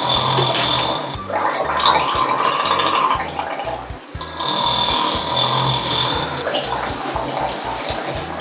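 Loud, exaggerated snoring in a repeating two-part cycle of about four seconds: a drawn-in, tonal snore, then a rattling, gurgling breath out.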